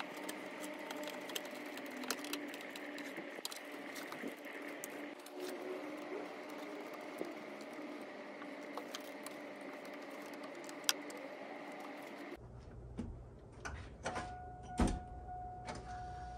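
Light metallic clicks and taps of hand tools, a screwdriver and a wrench, tightening the alternator wiring and the battery cable terminal, over a faint steady hum. About twelve seconds in the sound changes abruptly to a low rumble with a steady high tone and a few knocks.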